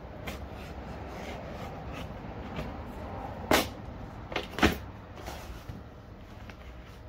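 Large corrugated cardboard shipping box being worked open: rustling and scraping cardboard, with two sharp cracks about a second apart midway as an end flap is pulled open.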